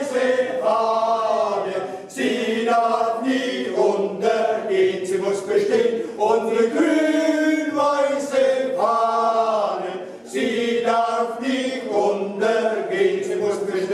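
Group of male voices singing together in long sung phrases, with brief breaks about two and ten seconds in.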